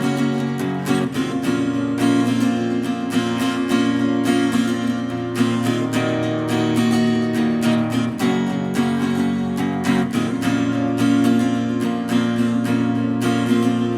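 Acoustic guitar strummed in a steady rhythm, an instrumental passage between sung verses.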